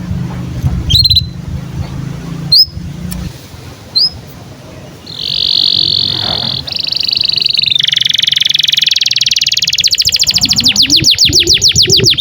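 Domestic canary singing. A few short rising chirps come over a low hum for the first three seconds, then a sequence of rapid high trills that change every second or two, ending in a run of quick sweeping notes.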